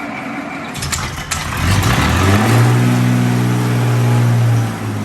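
Old Chrysler industrial gasoline engine running, revved up about a second and a half in, held at a steady higher speed, then dropping back toward idle near the end. A few sharp clicks sound about a second in.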